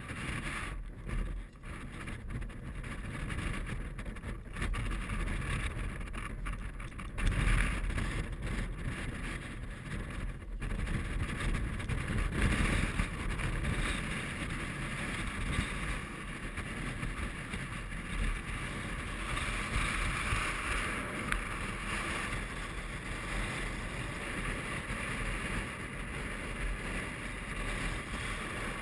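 Strong mountain wind buffeting the camera microphone: a steady rumbling rush that rises and falls with the gusts.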